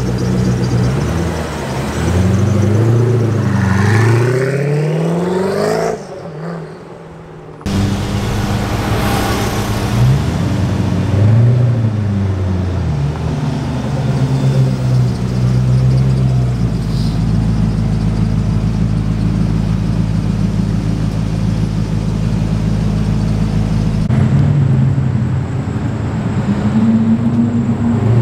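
Koenigsegg Agera R's twin-turbo V8 revving hard several times, the pitch rising and falling, with a short quieter gap about six seconds in. It then runs at a steady pitch for several seconds and rises sharply as the car accelerates near the end.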